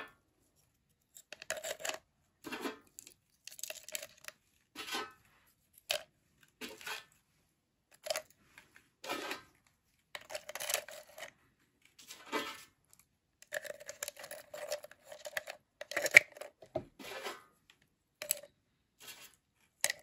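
Hard pieces of peanut brittle being handled and dropped into a plastic tub, with irregular clicks, clinks and paper rustling and one sharper click about 16 seconds in.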